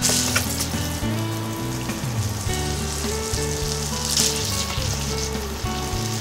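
Bacon strips and minced garlic sizzling in olive oil in a nonstick frying pan as the pan is reheated, a steady crackling that briefly grows louder about four seconds in.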